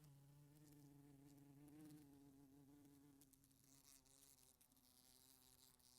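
Faint buzzing of a wasp at a window pane: a steady wing buzz whose pitch wavers slightly and eases off somewhat in the second half, with light ticks.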